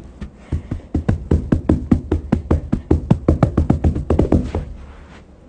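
A rapid, even run of knocking taps, about seven a second, starting about half a second in and stopping after about four and a half seconds.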